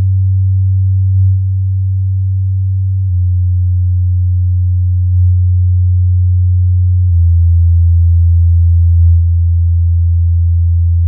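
Low bass test tones, around 100 Hz, played through Edifier R1280-series bookshelf speakers. Each tone holds steady for about four seconds, then steps to a new pitch, about 3 s and about 7 s in.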